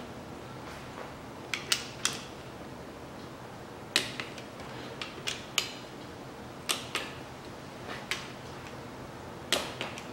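Sharp metallic clicks, singly and in pairs, every second or so, from a wrench being worked on the connecting-rod cap bolts of a Mitsubishi 4B10 engine as they are tightened to 19.6 N·m.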